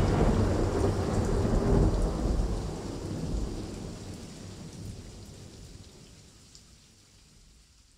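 Thunder rumbling with the hiss of heavy rain, dying away steadily and fading out to silence near the end.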